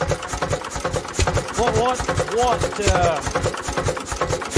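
International Harvester Type M 3 HP hit-and-miss engine running with a fast, even clatter. Its crankcase breather is stuck, so pressure in the crankcase pushes air and oil out of the block.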